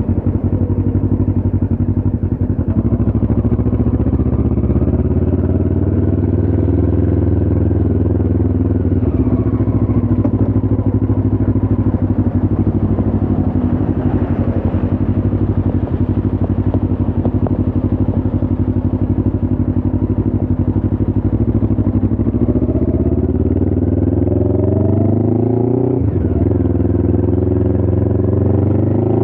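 Motorcycle engine running while riding, steady for most of the time, then rising in pitch as it accelerates near the end, with a brief dip partway through the climb.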